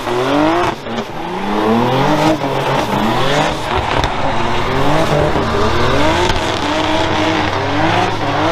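Drift car engine revved hard again and again while drifting, its pitch climbing in short repeated sweeps about once or twice a second, with spinning tyres screeching under it.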